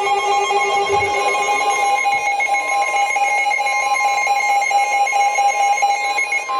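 Weather alert radio sounding its electronic alarm, a rapidly pulsing tone, over a steady single-pitch alert tone. The pulsing stops near the end and the steady tone carries on alone. Together they announce an incoming National Weather Service special marine warning.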